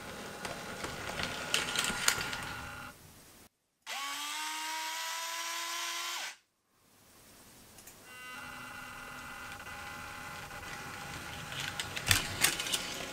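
Piko H0 model Taurus electric locomotive running, with the whine of its small electric motor and bursts of clicking as its wheels cross the track joints. The sound drops out twice. In between, a higher steady whine starts with a slight rise in pitch.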